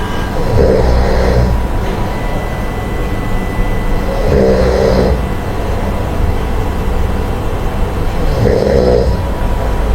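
Someone snoring in sleep: three snores about four seconds apart, one with each breath, over steady low background noise.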